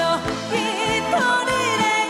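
A woman singing a slow ballad line with vibrato, settling into a long held note about a second in, over a band accompaniment with a steady beat.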